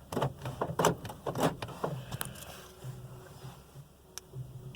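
A quick run of sharp clicks, about six in the first two seconds, then a few fainter ticks: the switchblade key and its remote being handled in the Nissan's ignition and door locks during remote programming.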